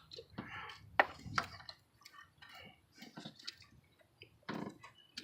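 A few faint, scattered clicks and knocks from hands and tools working on the ignition coils in the engine bay.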